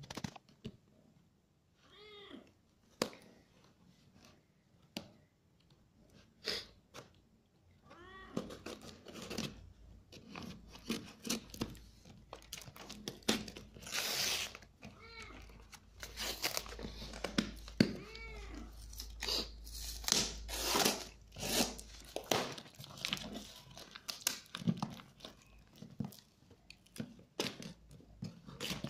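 Plastic wrap and packing tape being torn and peeled off a cardboard parcel: repeated ripping and crinkling, with a few short pitched sounds that rise and fall.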